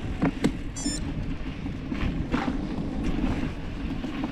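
Wind buffeting the camera microphone over the steady rumble of gravel-bike tyres on a dirt road during a descent, with a few sharp clicks and rattles from the bike.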